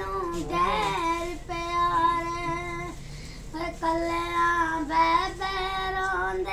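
A boy singing solo and unaccompanied, holding long, high notes with a slight waver in pitch and pausing briefly for breath twice.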